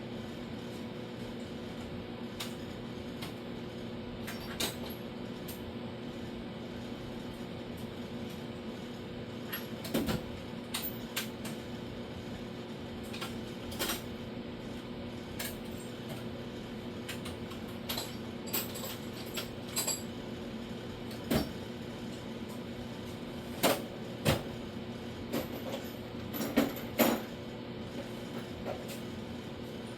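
Scattered metallic clinks and knocks of hand tools being picked up and handled, over a steady electrical hum with a few fixed tones. The sharpest knocks come about two-thirds of the way in and near the end.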